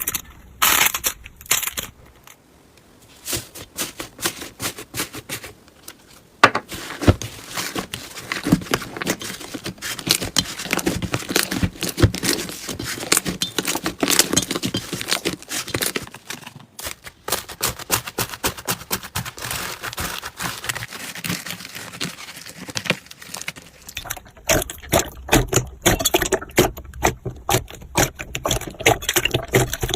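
Hands squeezing and poking slime, making a dense run of small crackles, pops and clicks, with a short lull a couple of seconds in.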